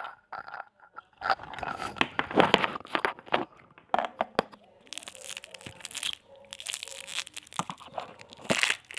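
Plastic lollipop wrapper crinkling and tearing as it is pulled open, in irregular crackles and clicks that thicken into continuous crinkling about five seconds in and again near the end.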